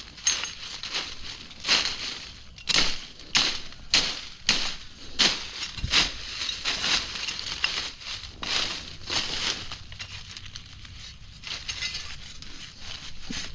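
Dry leaf litter and twigs crunching and rustling as someone moves through forest undergrowth, in short irregular crunches about one or two a second, easing off for a moment about ten seconds in.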